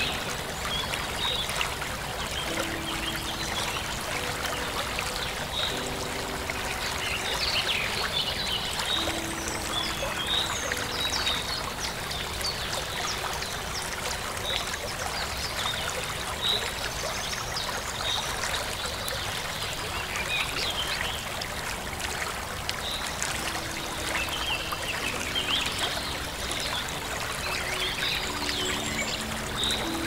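Running stream water with small birds chirping, many short, high calls scattered throughout. Soft, held low notes come and go underneath.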